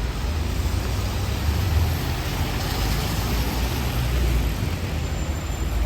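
Rainy city street: a steady rumble of passing traffic with an even hiss of rain and wet tyres.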